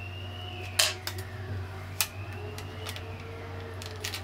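Thin protective plastic film being peeled off a laptop battery, giving a few sharp crinkles and crackles: the loudest about a second in, another about two seconds in, and a couple near the end.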